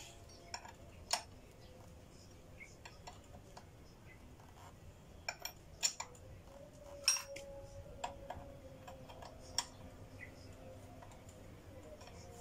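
Irregular sharp metal clicks and clinks of a T-handle socket wrench working the bolts at the top of a newly fitted motorcycle front fork, as the clamp bolts are tightened. There are a handful of louder clinks among fainter ticks.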